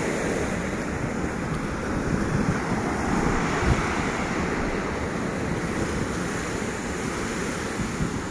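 Ocean surf breaking over rocks and washing up a sandy beach, a steady wash that swells about halfway through, with wind buffeting the microphone.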